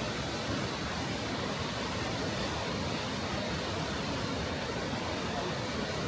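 Steady rush of falling water from Kegon Falls, a tall waterfall plunging down a cliff face, an even noise that does not change.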